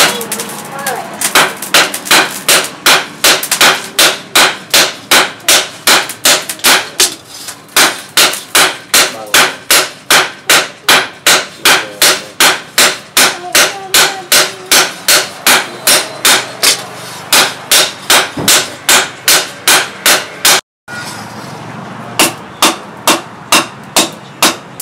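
Hand hammer striking a red-hot steel blade on a steel anvil, hot-forging the blade, in a steady rhythm of about two to three blows a second. The blows are broken by a short gap about three-quarters through.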